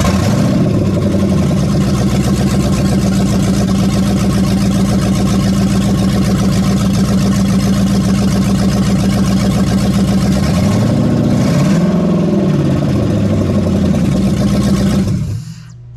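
Freshly swapped Hemi V8 in a Jeep firing up for the first time. It catches suddenly and runs loud and steady, revs up and back down once about eleven seconds in, then shuts off just before the end.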